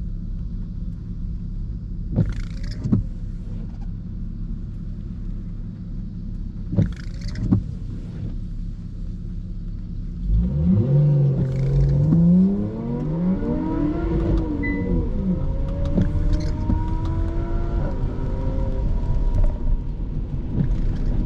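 Car cabin road rumble on a wet road, with windscreen wipers sweeping about every four to five seconds. About halfway through the engine pitch climbs and then falls as the car accelerates.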